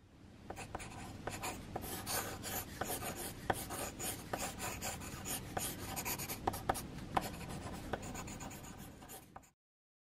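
Pencil sketching on the paper of a spiral-bound sketchbook: quick scratching strokes with frequent sharper ticks. It fades in at the start and stops suddenly about nine and a half seconds in.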